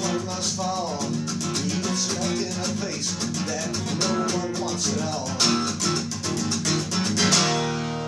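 Acoustic guitar strummed in a steady rhythm, closing on a final chord about seven and a half seconds in that is left to ring and fade.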